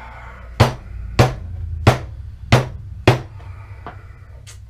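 Five sharp knocks on a hard surface, evenly spaced about two-thirds of a second apart, each with a dull low thud, over a steady low hum.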